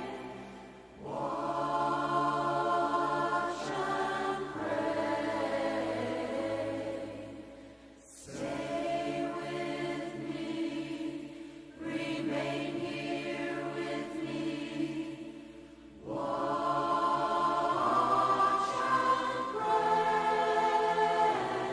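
A choir singing long, held chords in phrases of about four seconds each, with brief breaths between phrases.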